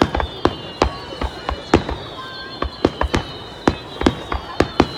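Fireworks going off: sharp bangs in quick irregular succession, several a second, over a thin high-pitched tone that slowly falls in pitch.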